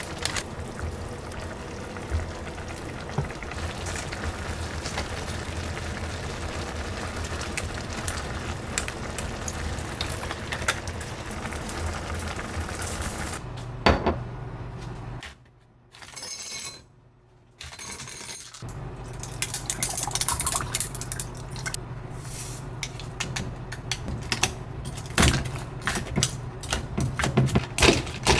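Ramyeon broth boiling steadily in a pan with the instant noodles in it. Then a tall glass is set down on the counter with a knock, and later ice and a drink in the glass are stirred with a long stirrer, with frequent clinks of ice against glass.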